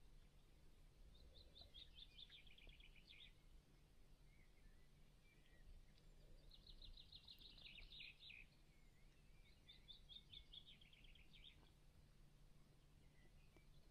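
Faint outdoor quiet in which a small songbird sings three short phrases of quick repeated notes, each phrase stepping down in pitch.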